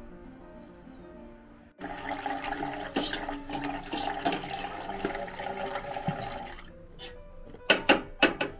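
Hot water pouring from a water dispenser's tap into a metal pot of milky liquid, a steady splashing stream that stops after about five seconds. A few sharp knocks follow near the end.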